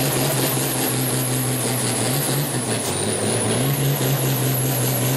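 Red International Harvester pulling tractor's turbocharged diesel running hard under load as it drags the weight-transfer sled, with a high, wavering turbo whistle over the engine note. The engine pitch sags about three seconds in, then climbs back up.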